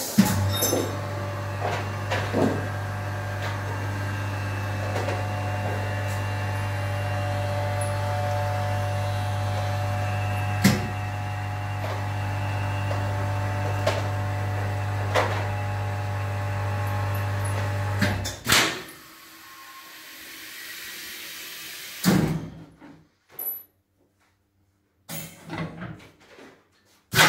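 Modified-atmosphere vacuum packaging machine running: a steady pump hum with occasional sharp clicks that stops suddenly after about eighteen seconds, followed by a few separate knocks.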